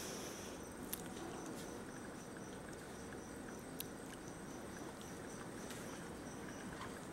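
Small puppies moving about on pee pads: soft pattering and rustling with a few sharp clicks, about a second in and near four seconds. Behind it a faint, high, even chirp repeats about three times a second.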